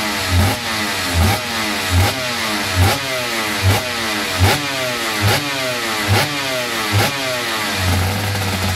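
Suzuki RGV500 Grand Prix motorcycle's V4 two-stroke engine being blipped: about nine quick revs a little under a second apart, each falling straight back, then settling to a steady idle near the end.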